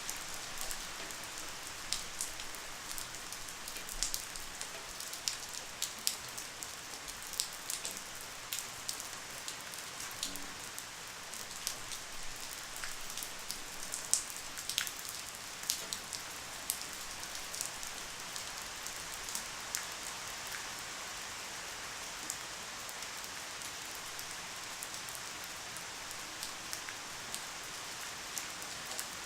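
Light rain falling steadily: an even hiss with many sharp individual drops ticking throughout.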